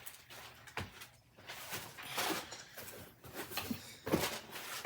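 A boxed karaoke machine being pulled out of its cardboard packaging: irregular rustling and scraping, with a sharp knock about a second in and another near the end.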